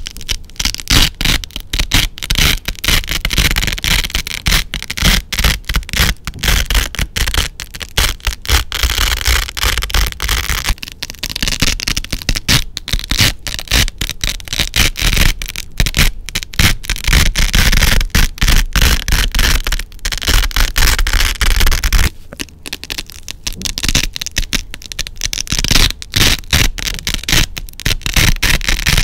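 Black Velcro hook tape being slowly peeled off an orange loop-fabric pad: a loud, dense, crunchy crackle of hooks tearing free from the loops.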